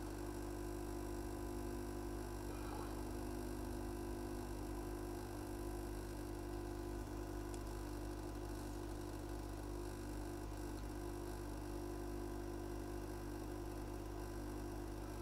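Hot air rework station blowing onto a phone logic board, a steady even hum while the SIM reader's solder joints are heated to soften them.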